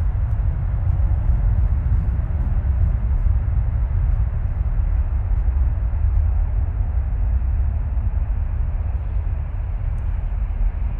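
A WestJet Boeing 737-700's CFM56 jet engines running as the airliner rolls along the runway: a loud, steady, low rumble with a noisy hiss above it.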